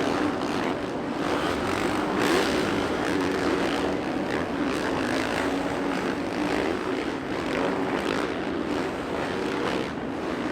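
Dirt bike engine running hard on a supercross track, its pitch rising and falling as the throttle is opened and eased.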